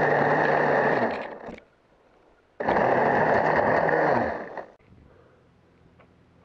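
Milwaukee battery-powered pole saw running in two bursts of about two seconds each, with a short pause between, while trimming tree branches. Its motor spins up at the start of each run and winds down at the end.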